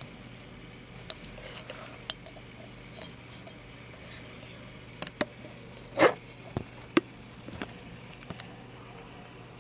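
Scattered light clicks and taps against a clear plastic container, a dozen or so irregular knocks with the loudest about six seconds in, over a faint steady hum.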